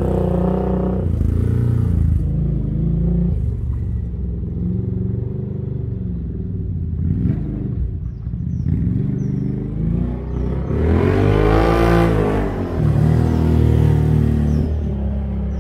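Can-Am Outlander ATV engine running through a custom muffler fitted with a silencer insert, heard as the quad is ridden around. The engine note wavers with throttle and swells up and back down in pitch about eleven seconds in.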